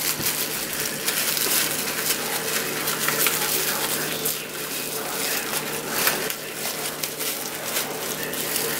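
Clear plastic oven bake bag crinkling and rustling in dense, irregular crackles as hands twist and knot its neck.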